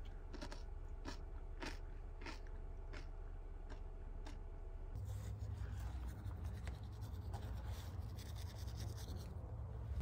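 A metal utensil clicking against a plastic bowl eight or so times, while noodle soup is eaten. About halfway through this gives way to a low wind rumble on the microphone with faint scratching.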